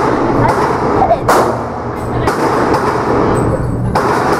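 A .40 caliber Glock 27 pistol fires a single sharp shot about a second in, inside a concrete-walled indoor range. Fainter cracks and a steady background din run under it.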